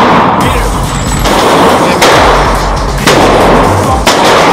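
Several loud gunshots about a second apart, each with a sharp crack and reverberant tail, over background music with steady bass notes.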